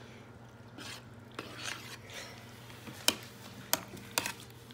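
A utensil scraping and clicking against a bowl while stirring macaroni and shredded cheese: a few separate sharp scrapes, the sharpest about three seconds in.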